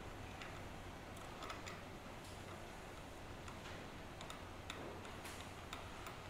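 Faint, irregular light clicks and ticks as an ER20 collet nut is threaded by hand onto a CNC spindle's collet chuck, over a low steady hum.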